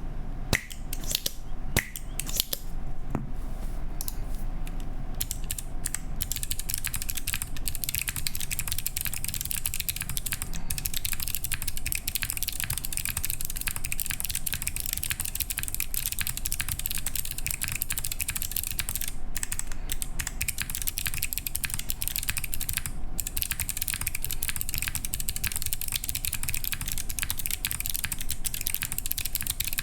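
Mechanical keyboard with Kailh Box Jade clicky switches, their click bars giving each keystroke a sharp click, under PBT keycaps, being typed on. Scattered keystrokes at first, then fast continuous typing from about six seconds in.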